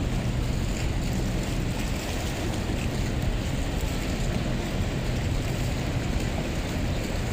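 Steady outdoor noise of wind on the microphone and water along the shore, with a faint low hum underneath.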